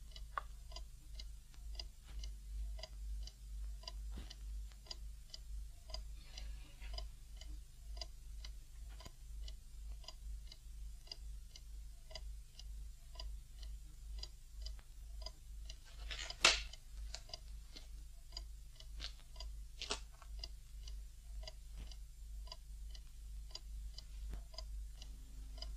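A clock ticking steadily in a quiet room, evenly paced throughout. A sharp knock comes about sixteen seconds in, and a fainter click a few seconds later.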